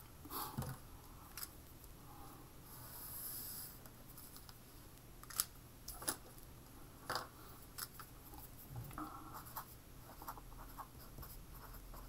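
Faint scratching of a felt-tip pen on paper: one longer stroke about three seconds in, then scattered taps and short strokes as writing begins.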